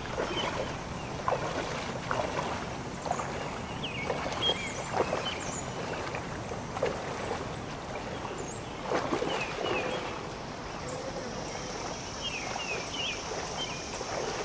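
Creek water running and splashing, with scattered small splashes, and birds calling in short chirps that glide up and down in pitch.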